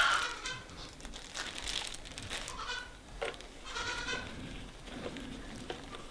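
Farm animal calling in several short, pitched cries, with a soft rustling between them.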